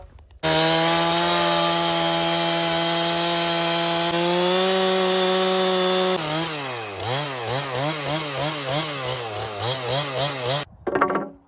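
Chainsaw running hard while shaving down the middle of a log. Its pitch holds steady at first and steps up a little about halfway. It then rises and falls about twice a second as the chain is worked back and forth through the wood. The sound cuts in and cuts off abruptly.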